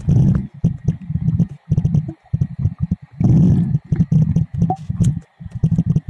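Muffled underwater rumbling and sloshing picked up through a submerged camera, coming in choppy, irregular bursts, with two fuller surges, one at the start and one about three seconds in.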